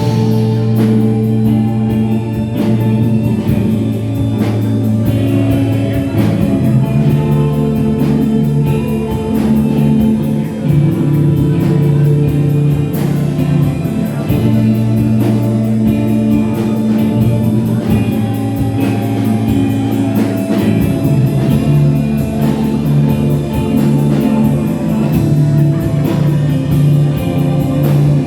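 A band playing rock music live, with guitar over a drum kit.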